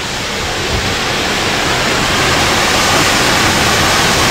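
Rushing water: a steady, even rush that grows gradually louder.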